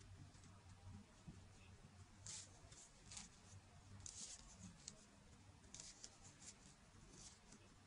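Faint rustling and scraping of a knit cotton glove being pulled over a stainless steel mesh safety glove, in short soft strokes, over a low steady hum.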